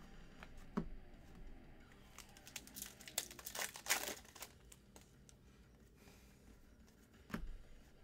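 Wrapper of a Donruss football card pack crinkling and tearing open, in a run of rustles about two to four seconds in, with a couple of light clicks before and after.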